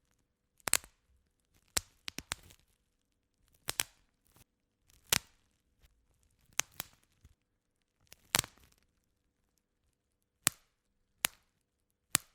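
Bubble wrap bubbles being pressed until they split, popping one at a time: about ten sharp pops at irregular intervals of roughly a second, some followed by a short crinkle of the plastic.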